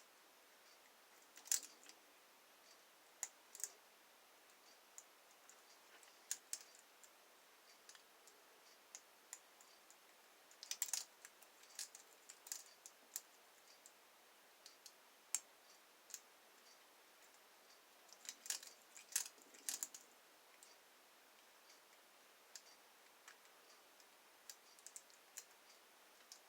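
Faint, irregular metallic clicks and ticks of a lock pick and tension tool working the pins of a lock, with small clusters of clicks about two-fifths of the way in and again about three-quarters through.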